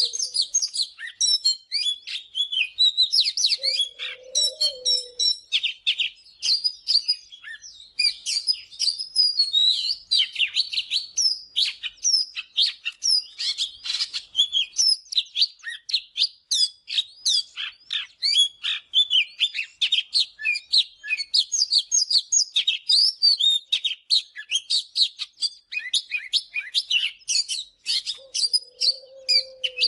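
Oriental magpie-robin singing: a dense, unbroken run of quick, high, varied whistled notes. A short low note sounds about four seconds in and again near the end.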